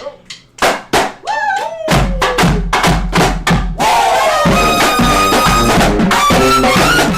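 Music: a few sharp drum hits, then about two seconds in a full beat with heavy bass kicks in, growing denser and louder from about four seconds in.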